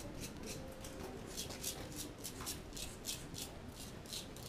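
Footsteps on a gritty, sandy path, a steady walking rhythm of about two to three crunching steps a second.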